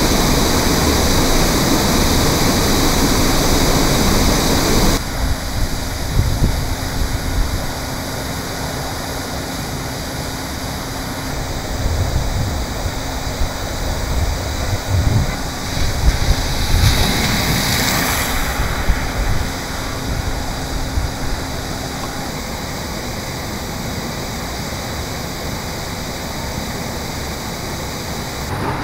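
Steady rushing of water from a fire hydrant sheared off at its base, gushing high into the air and flooding the road. It is loudest for the first five seconds, then softer with low rumbles, and swells briefly again about seventeen seconds in.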